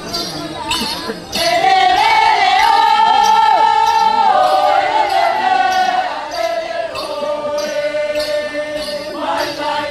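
Group of voices chanting the togo dance song in unison: about a second in, a loud long-held note starts, steps down in pitch twice, and breaks off near the end. A steady jingling beat keeps time underneath.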